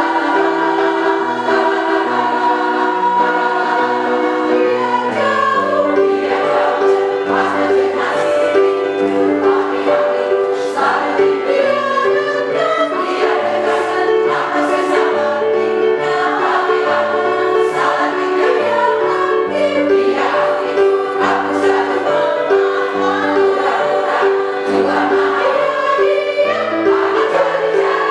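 Choir singing in harmony, with many voices holding stacked chords that shift every second or so.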